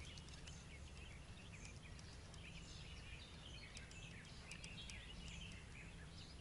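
Faint chirping of small birds in quiet outdoor ambience, over a faint steady low hum.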